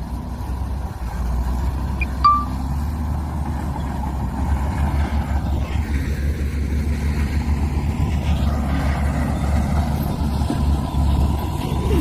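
Heavy diesel earthmoving machinery running steadily under load, a low engine rumble. A short high beep sounds about two seconds in.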